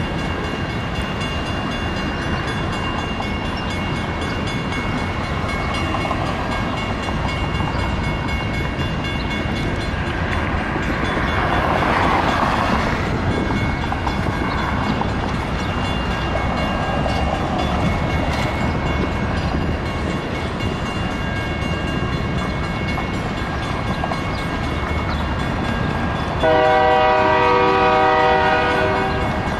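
Wisconsin and Southern freight train's cars rolling steadily through a grade crossing, wheels running on the rails. About 26 seconds in, a train air horn sounds one long blast, the loudest sound here.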